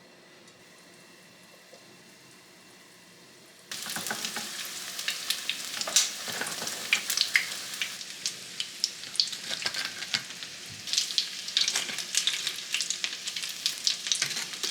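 Food frying in hot oil, a dense sizzle with many sharp crackling pops. It starts suddenly a little under four seconds in, after quiet room tone.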